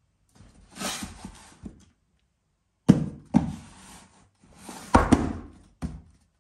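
Cardboard box scraping on a wooden shelf as it is pushed and tipped onto its side, then set back down, with several sharp thunks in the middle and near the end.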